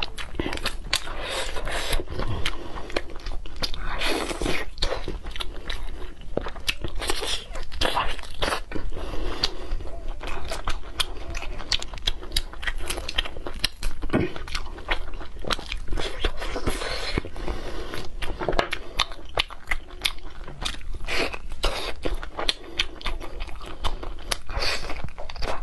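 A person eating braised pork ribs: meat torn from the bone, bitten and chewed, a dense, continuous run of small crunches and clicks.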